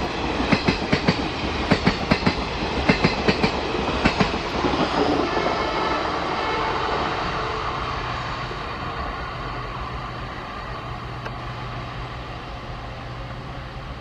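Passenger train coaches rolling past, wheels clacking over the rail joints in quick pairs for the first four seconds or so, then a steady rumble that fades as the train draws away.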